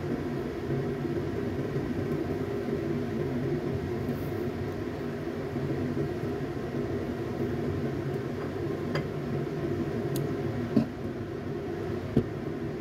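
Steady low mechanical hum throughout, with a few light clicks as eggplant pieces are set on a metal steaming plate, and one louder knock near the end as the lid goes onto the wok.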